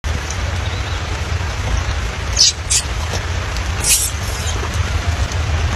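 Steady rain with a constant low rumble under it, and three short hissing noises about halfway through.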